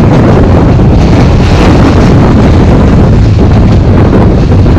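Wind buffeting a microphone held out of a moving passenger train's window, loud and steady, over the running noise of the coaches on the track.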